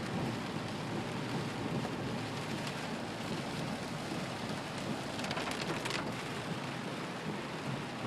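Heavy rain pouring down steadily in a thunderstorm, with a short crackling patch a little past five seconds in.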